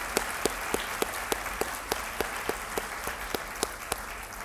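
Audience applauding, with one person's claps standing out at a steady pace of about three a second; the applause begins to thin out toward the end.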